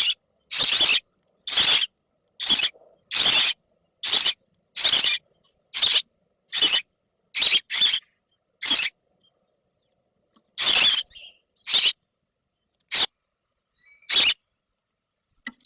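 Baby birds squeaking in short, high-pitched cheeps, about one a second, with a pause a little past the middle.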